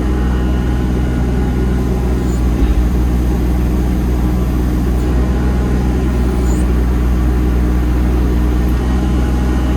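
Excavator diesel engine held steady at high revs while the slew pushes the bucket against the blade. The hydraulics are stalled over the slew relief valves at about 200 bar, which is within spec.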